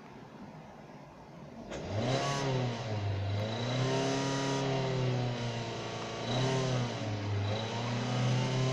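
Hyundai Tucson 2.0 engine, hot, idling quietly and then revved up several times and held high. It carries the metallic knock or ring that the owner reports appears only when hot at around 3500–3800 rpm, source unknown to him.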